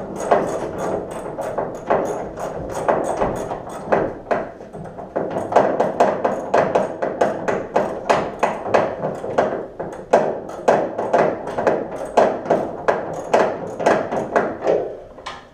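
Hand ratchet wrench clicking in quick runs of strokes as bolts are worked loose.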